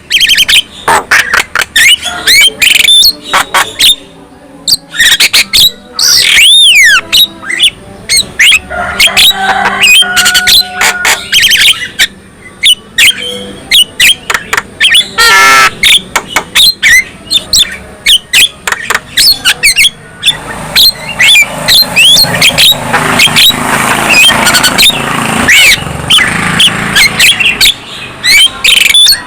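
Javan myna (jalak kebo) singing a long, loud run of rapid harsh clicks, squawks and chatter, broken by looping whistled notes that swoop up and down, with a rougher, scratchier stretch later on.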